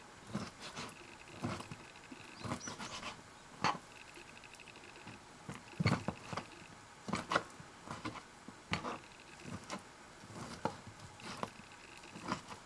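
Kitchen knife cutting raw white fish fillet on a cutting board: irregular knocks of the blade against the board, some sharper than others, spaced unevenly.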